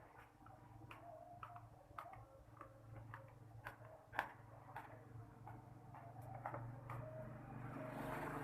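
Irregular light clicks and taps, about one or two a second, over a faint steady low hum, with a rising hiss near the end.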